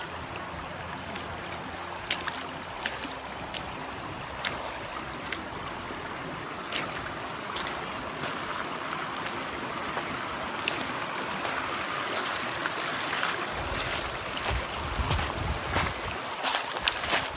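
Shallow water washing over a pebble shore: a steady hiss of moving water with scattered small clicks. From about 13 seconds in, a low wind rumble on the microphone joins.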